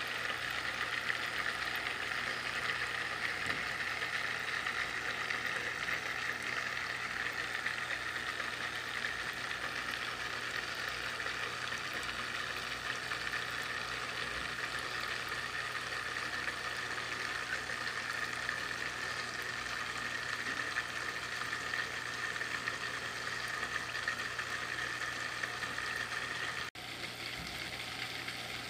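Water trickling and splashing steadily in a small pond water feature, a continuous even patter over a low constant hum. Near the end the sound breaks off for an instant and resumes a little quieter.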